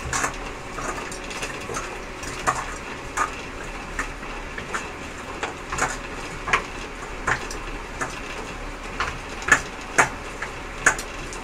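Chicken pieces being mixed by hand with spices in a stainless steel bowl: irregular clinks and knocks of bangles against the bowl, over a steady hiss.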